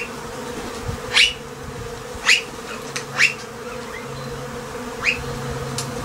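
Honey bees buzzing steadily, a crowd of workers on a brood frame taken out of the hive. About six short, sharp rising chirps cut through the hum.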